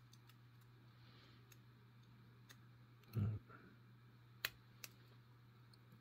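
Faint, scattered metallic clicks of a hook pick and tension wrench working the pin stack of a five-pin brass Yale padlock during single-pin picking, with a short hum of voice about three seconds in.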